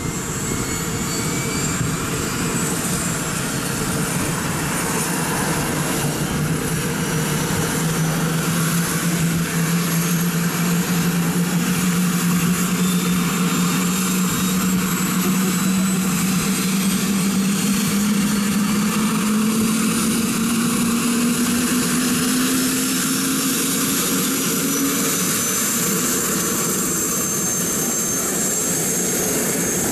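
Airbus H125 helicopter's turbine engine and rotor running on the ground, a steady high whine with a low hum under it, both slowly rising in pitch as the rotor spins up.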